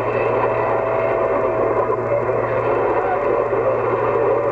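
CB radio receiver hissing with open-band static on 27 MHz, with a thin steady whistle running through it for a few seconds and a constant low hum underneath.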